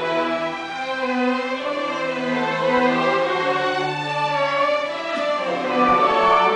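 Youth orchestra playing, led by violins and cellos, with held notes moving slowly from one to the next and growing a little louder near the end.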